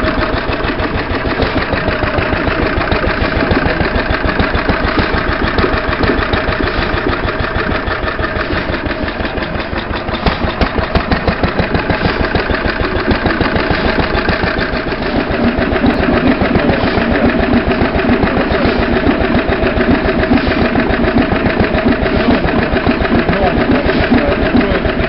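Vintage Lister D single-cylinder stationary engine running steadily, with a fast, even chuffing beat. Its sound shifts about fifteen seconds in, becoming heavier and deeper.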